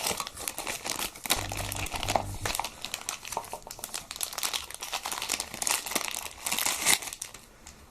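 Plastic packaging crinkling and rustling as a phone's boxed accessory, the USB charging cable, is handled and unwrapped, with quick irregular crackles that die away near the end.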